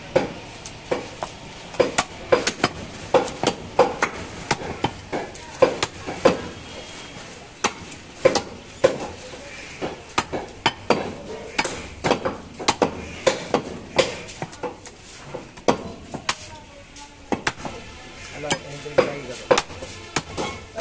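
A heavy cleaver chopping beef on a wooden stump block: repeated sharp chops, irregular, about two a second, with a short lull near the end.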